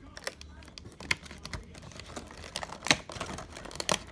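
Fingers working at a toy box's clear plastic window packaging as it is opened: a run of small irregular clicks and taps, with a few sharper snaps among them.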